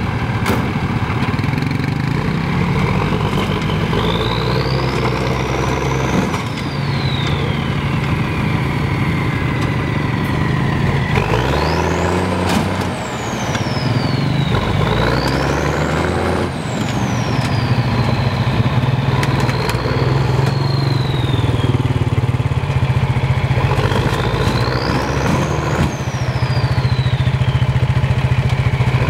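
Monster mud truck's engine running and revving up and down repeatedly while the truck is stuck on top of a junked car. A high whine rises and falls with each burst of revs, several times over.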